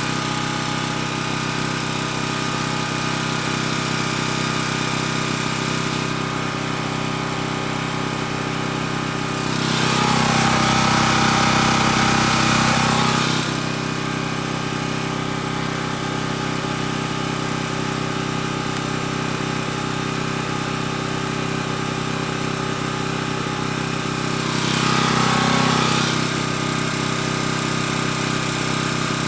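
Champion portable generator's engine running steadily, growing louder twice: for about three seconds roughly a third of the way in, and briefly near the end.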